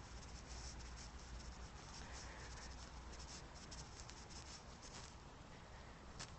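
Faint rubbing and scratching from a hand-held phone being carried while walking, with a low wind rumble on the microphone.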